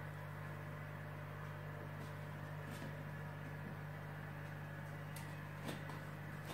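Steady low electrical hum of aquarium equipment, a pump or filter, with a few faint clicks about three seconds in and twice near the end.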